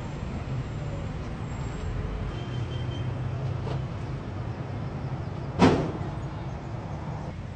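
Steady low rumble of vehicle engines and traffic, with one sharp knock about five and a half seconds in.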